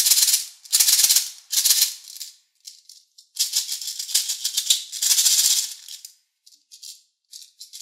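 Small plastic beads rattling inside a clear plastic toy container as it is shaken. Three short bursts come first, then a longer spell of about three seconds midway.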